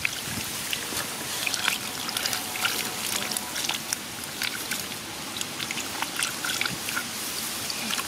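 Splashing and sloshing in shallow muddy water, with many short, irregular splashes and drips.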